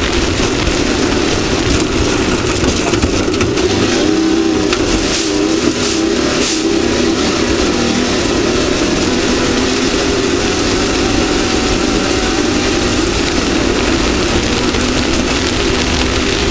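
Off-road race vehicle's engine running hard at speed, its pitch wavering slightly, under a steady rush of noise, with a few brief rattles near the middle.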